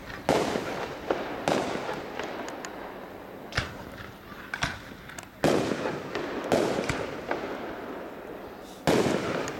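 Aerial fireworks shells bursting: several loud booms a second or two apart, each trailing off in a long echo, with smaller cracks and pops between them.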